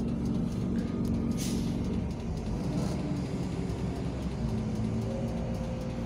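Bus engine running steadily at low speed, heard from inside the driver's cab, with a short hiss about a second and a half in.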